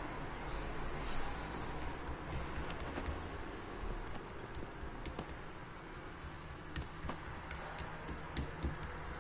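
Fingertips patting and pressing soft dough flat on a silicone baking mat: light, irregular taps over a steady background hiss.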